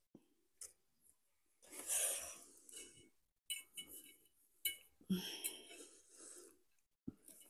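Quiet mealtime table sounds: a few sharp clinks of tableware with a brief high ring, and soft breathy mouth noises between them.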